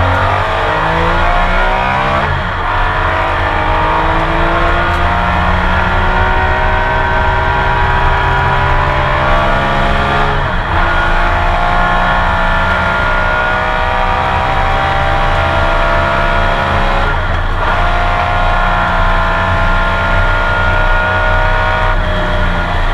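Porsche 911 RSR's flat-six engine at full throttle, heard from onboard, climbing in pitch through the gears with three quick upshifts, then easing slightly near the end.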